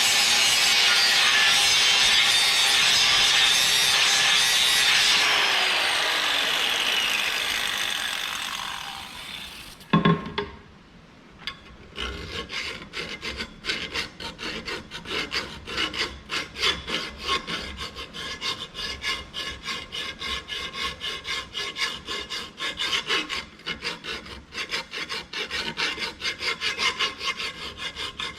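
Electric grinder grinding the edge of a steel mower blade, then switched off, its tone falling as it spins down. A knock comes about ten seconds in. From about two seconds later there are rapid, repeated strokes of metal rubbing on the blade edge, typical of hand filing.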